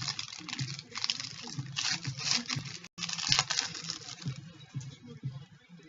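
Trading card pack wrappers crinkling and cards being flicked through by hand: a quick run of rustling and small clicks that thins out after about four and a half seconds.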